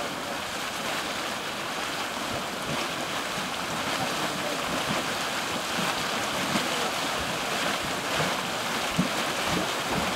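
Steaming mud pot of Yellowstone's Mud Volcano: a steady rushing hiss of venting steam and churning mud, with short low thuds that come more often in the second half.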